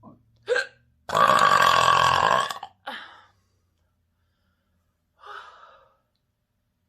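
A person's long, loud burp of gulped air, lasting about a second and a half. It comes just after a short sharp sound, and a short sound follows it, then a softer one a couple of seconds later.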